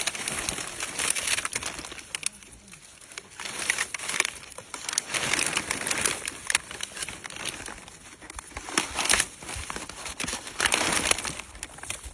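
Thin black plastic sheeting rustling and crinkling as it is handled and pulled back by hand, with dry sugarcane straw crackling beneath it, in irregular bursts.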